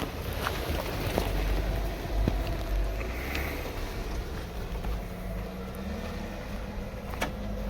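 Jeep engine running at low speed, a steady low rumble, with wind buffeting the microphone and a few light clicks.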